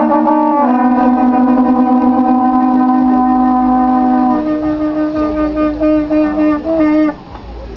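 Horn-like wind instruments holding long notes, two pitches together at first, then a single note that steps up in pitch a few times before cutting off about seven seconds in.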